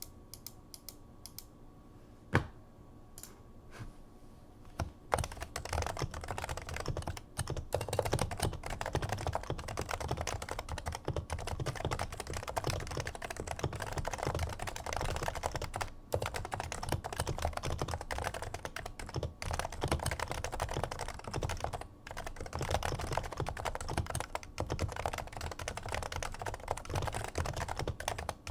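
Typing on a Topre Realforce R2 keyboard with factory-silenced 55 g Topre electrostatic capacitive switches, whose purple sliders carry silencing rings. A few scattered key clicks come first, then about five seconds in a fast, continuous run of muted keystrokes begins, broken by a couple of brief pauses.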